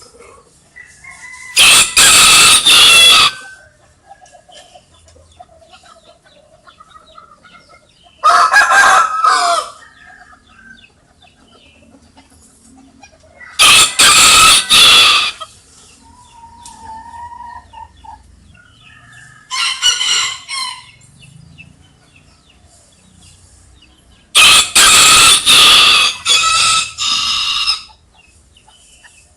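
A rooster crowing five times, a loud crow about every five or six seconds, the last one the longest. Between the crows, hens cluck quietly.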